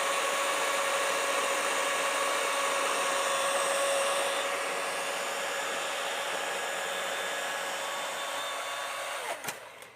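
Toro Flex Force 60-volt battery chainsaw running with a steady electric whine. It winds down and stops about nine and a half seconds in.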